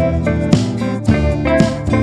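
Background music: a guitar-led instrumental tune with a steady beat.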